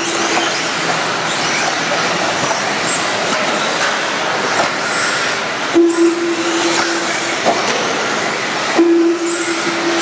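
A pack of 1/10-scale electric modified RC buggies racing on a dirt track: a dense, steady high whine of brushless motors with tyres and chassis clattering over the dirt. A low steady beep sounds for about a second at the start, again about six seconds in, and once more near the end.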